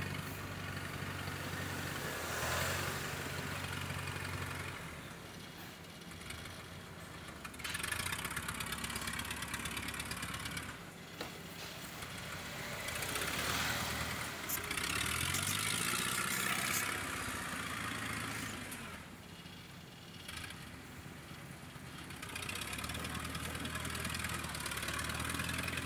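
Engine of a tracked rice-hauling cart, loaded with bags of paddy, running as it works across soft, sinking field ground laid with straw. The engine note rises and falls, climbing in a rev about halfway through.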